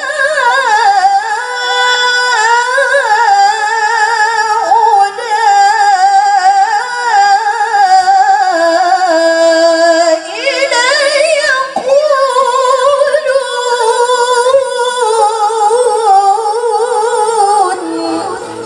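A woman reciting the Qur'an in a melodic, sung style, holding long notes with wavering ornaments. There is a short break about ten seconds in, and the phrase dies away just before the end.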